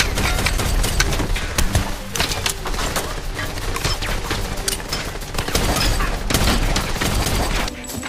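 Rapid gunfire from several guns in a film shootout, with shots coming several times a second and a brief lull near the end.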